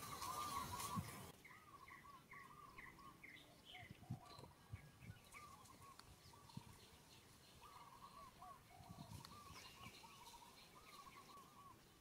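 Faint bird calls: series of short, quickly repeated chirping notes, a few per second, with light background hiss.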